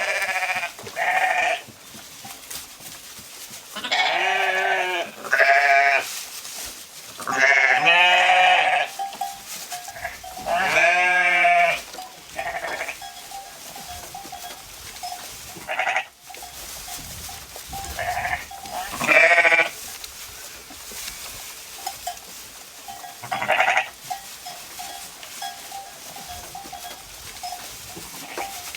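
Sheep bleating: about nine wavering calls, each lasting up to about a second and a half, some deeper and some higher, most of them in the first half and the last about two-thirds of the way through.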